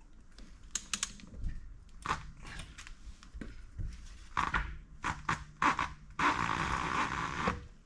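Metallic clicks and knocks from a large 3/4-inch-drive click-type torque wrench on a wheel lug nut as it is fitted and stood on; the wheel creeps round rather than letting the wrench reach its 450 ft-lb click. Near the end, a steady hiss lasts about a second and a half.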